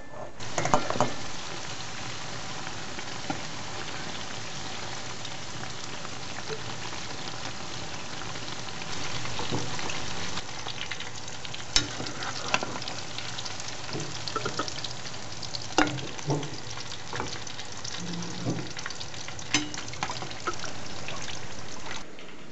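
Eggplant pieces frying in hot oil in a pan: a steady sizzle with scattered crackling pops and occasional sharp clicks.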